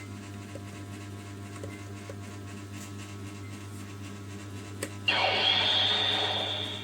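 Bootleg Kamen Rider Ryuki CSM V Buckle toy belt: a sharp plastic click about five seconds in, then its small speaker plays a loud electronic sound effect, a rushing noise with a high ringing tone on top that fades over about a second and a half.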